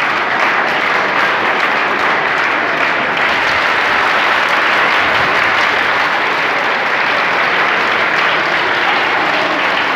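A large audience applauding steadily, the clapping unbroken and even throughout.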